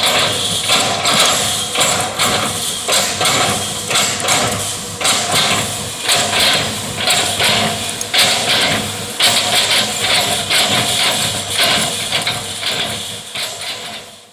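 Excavator's diesel engine running, with repeated irregular knocks and clanks from the machine at work. It fades out near the end.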